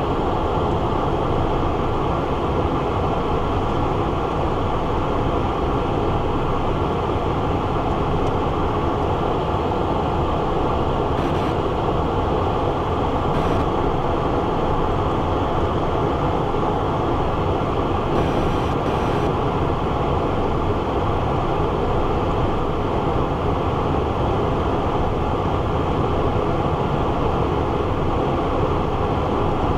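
Steady cockpit noise inside a Cessna Citation Encore business jet on final approach with landing gear down and flaps at land: an even, low sound of airflow and turbofan engines that stays constant.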